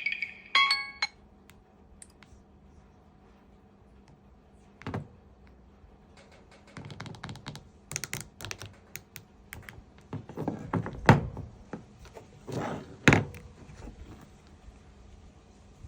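A marimba-like phone ringtone stops about a second in; after a pause come scattered taps, clicks and thumps of a smartphone being handled, the loudest two-thirds of the way through.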